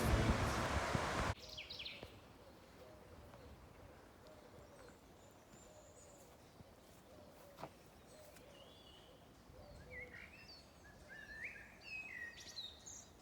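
Background music cuts off suddenly just over a second in, leaving quiet outdoor ambience with scattered songbird chirps that come more often near the end. There is a single sharp click partway through.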